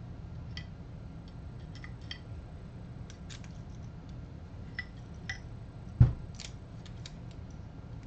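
Scattered small clicks and taps of metal parts as a coffee grinder's electric motor and housing are handled, with one heavy knock about six seconds in. A low steady hum sits underneath.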